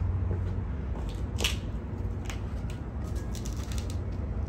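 Crackling and rustling as a potted rose bush in a plastic pot is handled, with a sharp crackle about a second and a half in and a flurry of small clicks after three seconds, over a steady low background rumble.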